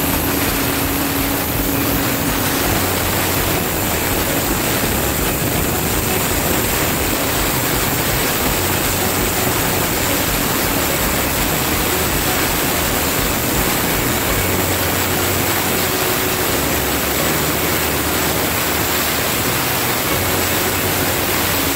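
Handheld angle grinder cutting through a granite countertop slab: a loud, steady grinding noise of the spinning disc in the stone.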